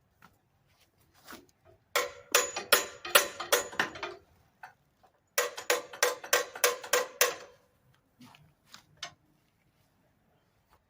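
MIG welder laying two short tack welds on steel, each a rapid run of sharp crackling clicks about two seconds long with a steady hum beneath.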